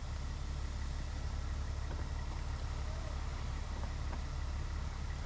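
Steady low background rumble with a faint hiss, even throughout with no distinct events.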